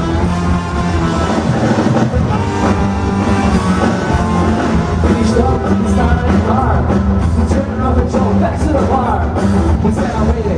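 Live rock band playing loudly through a PA, with a sung vocal line over guitars, bass and drums.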